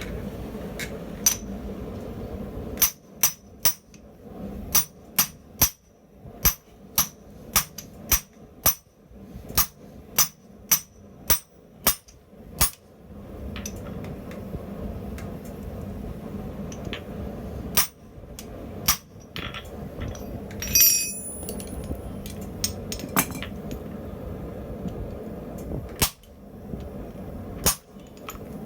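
Hammer blows on hot steel at the anvil: a run of sharp, ringing strikes about two a second for some ten seconds, then scattered single blows and one louder ringing clang, over a steady low rumble.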